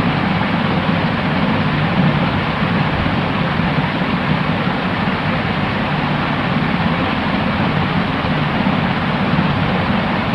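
Steady white noise for sleep: an even, unbroken hiss with a fuller low rumble underneath and little in the very high treble.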